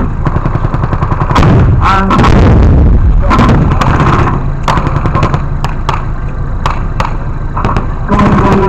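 Scattered blank-round gunfire during a staged WW2 battle: many sharp shots at irregular intervals over a continuous low rumble.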